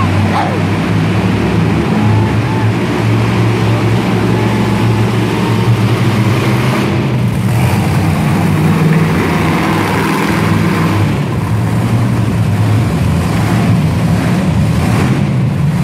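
Monster truck's supercharged V8 engine running loud and steady as the truck drives slowly across the dirt, its deep note wavering slightly with the throttle.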